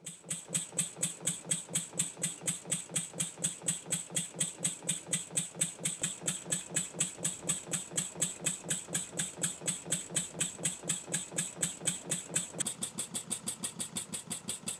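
Wig-Wag stretched oscillating-cylinder model steam engine running, beating evenly about four times a second, and quickening near the end.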